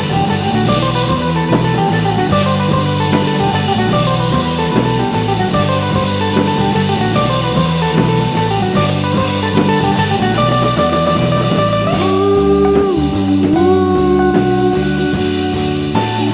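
A rock band playing an instrumental passage: guitars and drum kit with a steady beat, a melody stepping through descending runs, then long held, sliding notes from about twelve seconds in.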